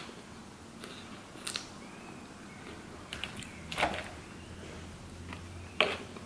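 Soft eating sounds: quiet chewing of salad and a few short clicks of a metal fork against a clear plastic salad bowl, the loudest about four seconds in and again near six seconds.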